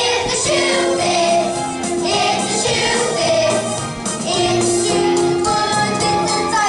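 A song: a children's choir singing over instrumental accompaniment with a steady beat.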